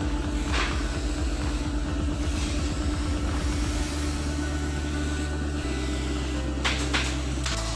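Background music carried by a deep, steady bass line that shifts to a new note every second or two.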